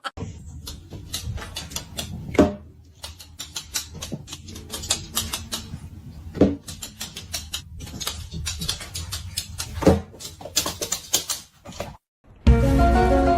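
Irregular clicking and tapping in a small room, broken by three louder thumps about four seconds apart. Music starts near the end.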